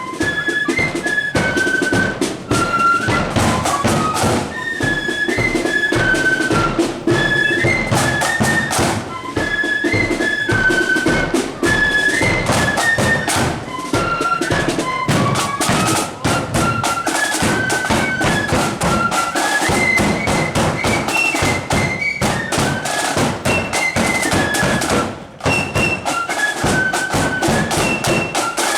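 Marching flute band playing a tune in unison, the flutes carrying a high melody over steady snare and bass drum beats.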